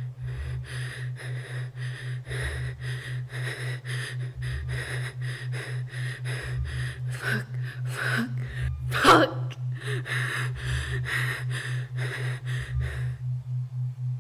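A person breathing fast and hard in rapid gasps over a low electronic drone that pulses about four times a second, with a deeper throb about every two seconds. A few short rising gasps or cries come through near the middle, the loudest about nine seconds in. The breathing stops shortly before the end while the pulsing drone goes on.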